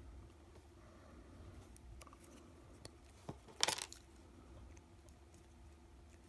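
Plastic parts of a Transformers Siege Chromia action figure clicking and scraping as it is transformed by hand: a few faint clicks, then a short cluster of clicking and rattling about three and a half seconds in.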